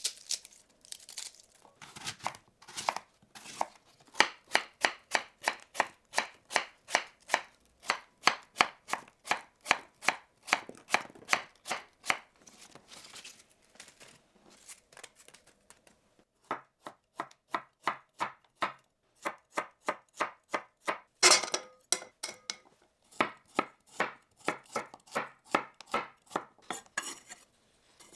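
Kitchen knife chopping food on a cutting board in quick, even strokes of about three a second. The chopping thins out for a few seconds around the middle, then resumes, with one louder chop about two-thirds of the way through.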